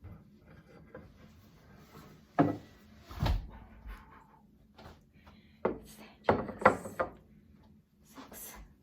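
Handling noise of small objects being fitted and set down: a scattered series of knocks, clicks and rubs, loudest in a cluster a little past the middle.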